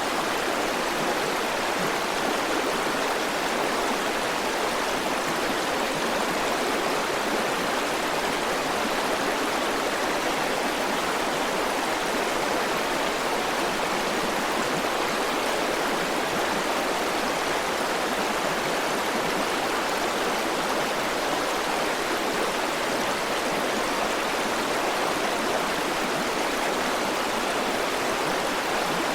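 River water flowing steadily over rocks, an even rushing wash that does not change.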